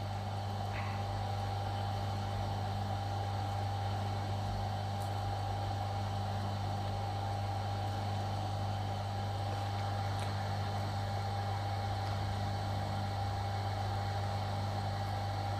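Steady electrical hum with a thin higher tone over a soft, even hiss, unchanging throughout, with no separate clicks or knocks.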